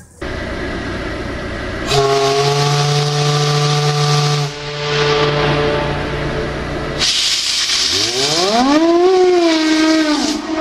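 Steam hissing, then about two seconds in a steam whistle sounds a steady chord of several tones, briefly loud and then weaker. Near the end, after a louder rush of steam, a whistle slides up in pitch and holds.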